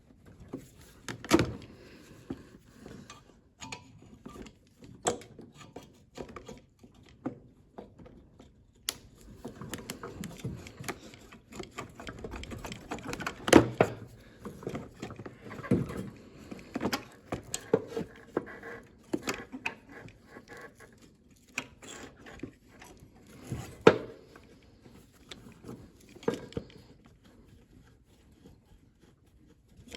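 Irregular clicks, knocks and scraping of hand tools against metal parts while a carburetor is being removed from a lawnmower engine, with a few sharper knocks standing out.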